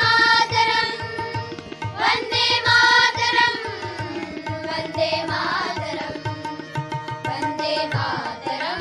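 Group of children singing a patriotic song with held notes, accompanied by harmonium and tabla beating steadily underneath.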